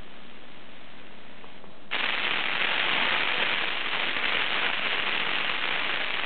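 Sony XDR-F1HD FM tuner putting out static hiss from an empty or too-weak channel during a band scan. The hiss jumps suddenly louder about two seconds in, as the tuner steps to another frequency, and then holds steady.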